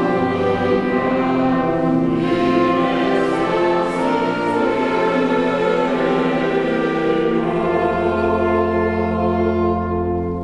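A choir singing in rehearsal, settling into a long held closing chord that fades away at the very end.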